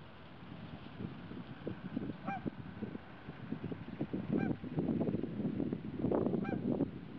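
Geese honking: three short single honks about two seconds apart, over an uneven low rumble that grows louder partway through.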